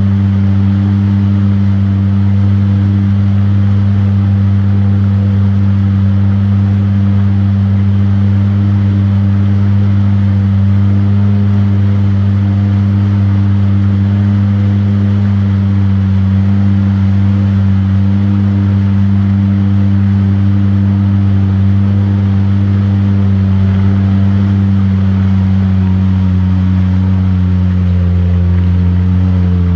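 ATV engine running at a steady speed, with its pitch rising slightly near the end.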